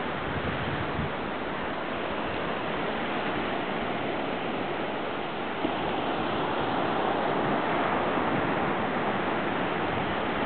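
Steady wash of ocean surf breaking on a sandy, rocky shore.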